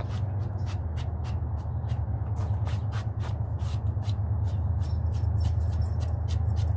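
Paintbrush bristles swept over bare wooden fence boards to dust them off: a quick run of short brushing strokes over a steady low rumble.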